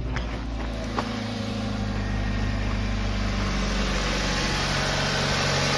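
A 2006 Kia Spectra's four-cylinder engine idling steadily just after starting. There is a light click about a second in.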